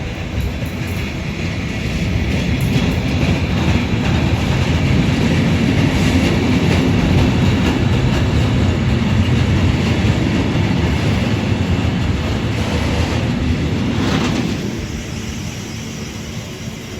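Intermodal freight train's container wagons rolling past, wheels rumbling and clattering on the rails; the noise eases about fourteen seconds in.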